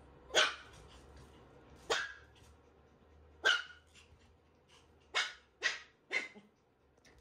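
Shiba Inu puppy barking: six short barks, about one every second and a half, with the last three coming closer together.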